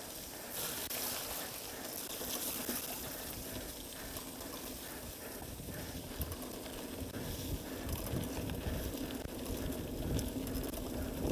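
Mountain bike rolling along a muddy dirt track: tyres through wet mud and dirt with the bike rattling, and low rumble of wind on the microphone growing in the second half.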